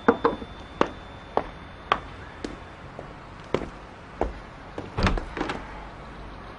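Footsteps on a hard floor, a sharp step roughly every half second to second, walking up to a door. About five seconds in comes the loudest group of clicks, as the handle and latch of the wooden front door work and the door opens.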